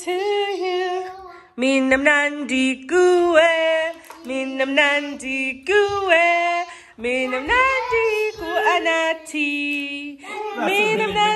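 A woman singing with a child's voice alongside, a melody of held notes that slide from one to the next in short phrases, with more voices overlapping near the end.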